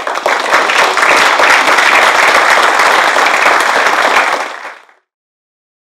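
Audience applauding: many hands clapping in a dense, even patter that dies away about five seconds in.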